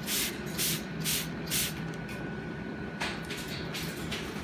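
Hand-pumped spray bottle squirting water in short hissing bursts, four in quick succession about half a second apart, then a few more later. A steady low hum runs underneath.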